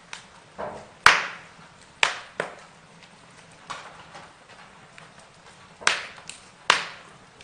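Burning wood crackling, with sharp pops at irregular intervals, the loudest about a second in.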